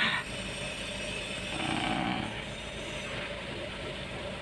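Mazda 6 engine idling steadily, with a brief slight swell in level a little under two seconds in.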